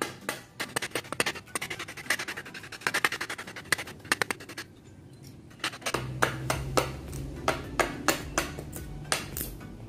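Butcher knife chopping and shaving at a wooden ladle blank made from crate wood: a rapid run of short cuts, a brief pause about halfway, then slower cuts about two a second. Background music comes in about six seconds in.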